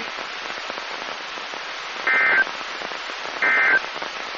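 Weather radio static hiss, then two short bursts of EAS/SAME digital data tones just over a second apart: the end-of-message code that closes the tornado warning broadcast.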